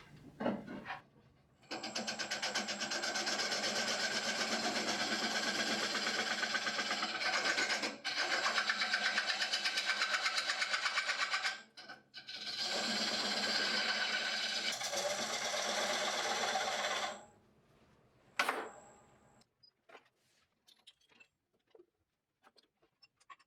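Woodturning tool cutting into a bowl spinning on a Nova Neptune lathe: a steady scraping hiss with a fast, even pulse, in two long cuts with a short break between them. A single sharp click follows near the end.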